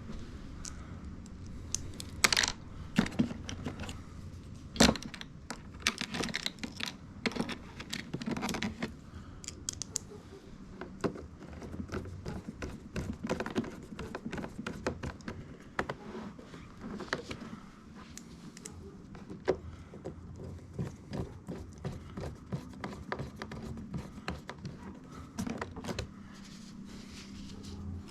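Hands handling small hard parts and tools: irregular clicking, tapping and rattling, with a few sharper knocks in the first five seconds.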